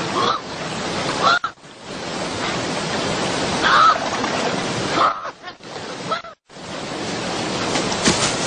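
Fast, rushing river water, steady and noisy, over which an animal gives several short cries. The sound cuts out abruptly twice.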